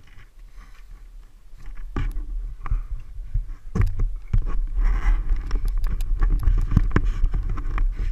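Knocks and scrapes of a fallen Kawasaki KDX 125 dirt bike being hauled upright in mud, over a low rumbling buffeting on the helmet camera's microphone, getting louder about two seconds in. No engine is running.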